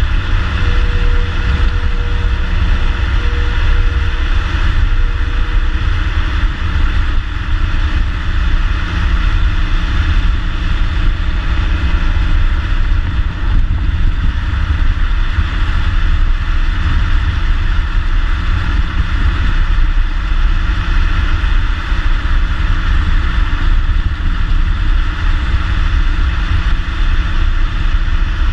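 2014 Ford Mustang's 3.7-litre V6 through its stock exhaust, running steadily while the car is driven, a constant deep drone with no revving.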